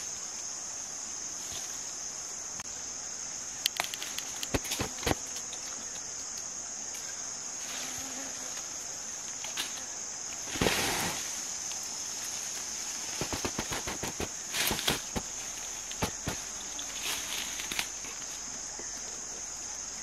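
Insects trilling in a steady, high-pitched drone, with intermittent rustling and crackling of dry leaves, twigs and branches as someone moves through undergrowth picking fruit. The loudest rustle comes about halfway through.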